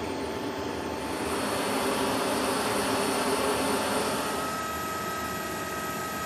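Steady rush and whine of the C-17 Globemaster III cargo jet running on the ground. A thin high whine tone comes in about four seconds in.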